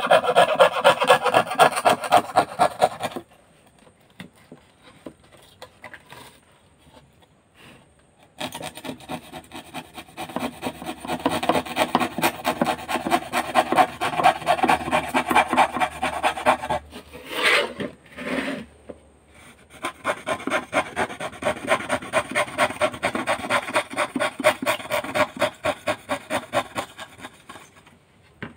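A number 8 saw blade cutting 8 mm plywood, a rhythmic rasping of repeated strokes. It stops for about five seconds after the first three seconds, then resumes with a short break past the middle.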